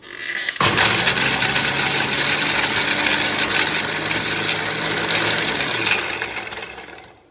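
Electric mixer grinder running, its stainless steel jar grinding soaked almonds with a little water into a paste. The motor starts about half a second in, runs steadily, then is switched off and winds down near the end.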